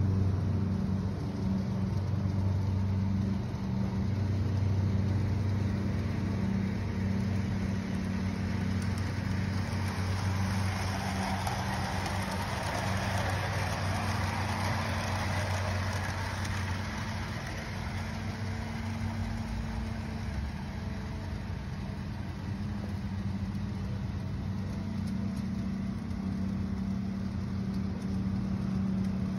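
Bachmann G-scale 4-6-0 model locomotive and its cars running on track, a rolling rumble of wheels and drive that swells as the train passes close, loudest about halfway through, then fades. A steady low hum runs underneath.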